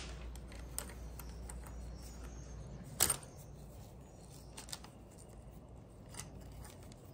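Faint clicks and taps of RC truck hub and axle parts being fitted into the plastic steering knuckle by hand, with one sharper click about three seconds in.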